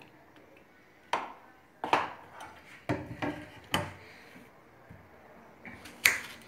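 Sharp wooden knocks and clatter as a wooden cutting board and knife are set down on a kitchen counter, several in quick succession over the first few seconds. Near the end comes one louder knock as a peeled onion is halved on the board.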